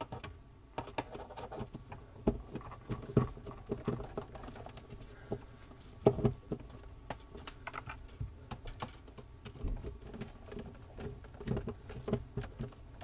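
A screwdriver tightening the set screws on a kitchen faucet's mounting nut: irregular small metal clicks and taps, a few at a time, with a louder knock about six seconds in.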